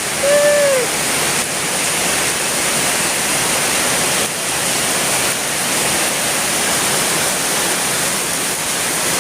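Heavy tropical rain pouring down in a dense, steady hiss.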